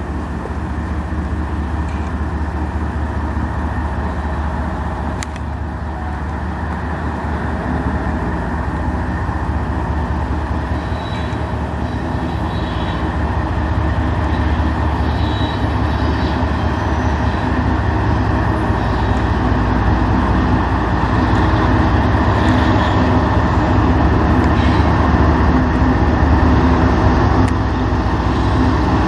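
Diesel freight locomotives led by CN 3048, a GE ET44AC, approaching at low speed: a steady low engine drone that grows slowly louder as the train draws near.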